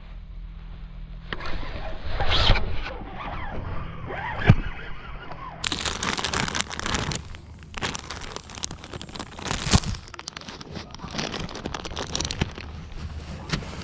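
A plastic soft-bait bag crinkling and rustling as it is handled, starting about halfway through and carrying on with dense crackles. Before it come handling knocks and one sharp click about four seconds in.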